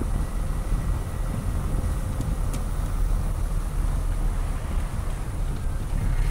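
Car driving slowly, heard from inside the cabin: a steady low rumble of engine and tyres on the road, with one light click about two and a half seconds in.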